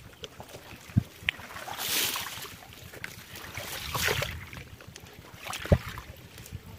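Someone wading through shallow water, with two sloshing swells about two seconds apart, and three short sharp knocks, the loudest about a second in and near the end.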